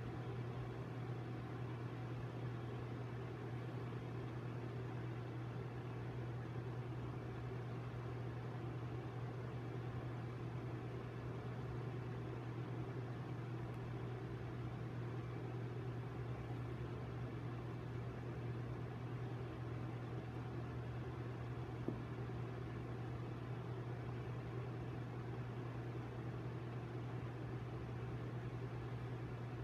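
Steady low hum with a faint hiss over it, unchanging room tone of a running household machine; a single faint tick about three quarters of the way through.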